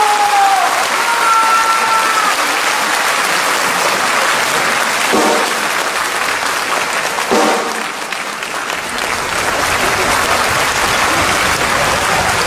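Large audience applauding steadily in a hall, with a few brief high-pitched shouts over the clapping in the first couple of seconds.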